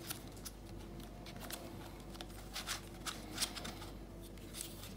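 Plastic twisty puzzle, a LimCube Transform Pyraminx, being turned by hand: faint, irregular clicks of its pieces as layers rotate.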